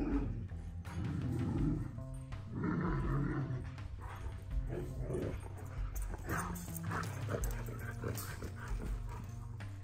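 Dogs vocalizing in over-excitement: huskies and a Great Dane give a string of short yips, barks and whining howls, with music playing underneath.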